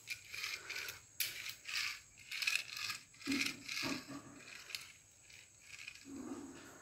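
Small toy car being rubbed back and forth on the floor to wind its pull-back motor, its gears giving a series of short ratcheting whirrs before it is let go.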